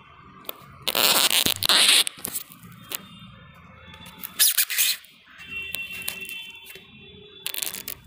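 Handling noise on the recording phone: three loud bursts of rubbing and scraping against the microphone, the first lasting about a second, the others shorter, near the middle and near the end.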